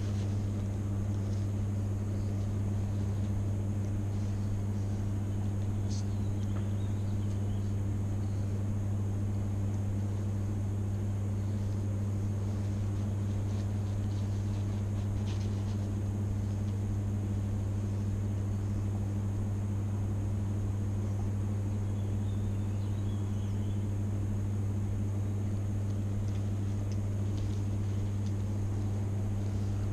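A steady low hum that does not change, with a few faint clicks over it.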